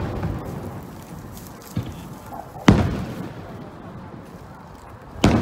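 Aerial firework shells bursting: a small bang about two seconds in, then two loud booms a little over two seconds apart, each trailing off in a rolling echo.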